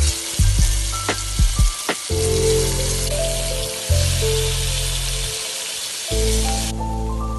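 Chicken pieces sizzling as they sear in hot oil in a pan, a dense steady sizzle that cuts off abruptly near the end, over background music with a steady bass line.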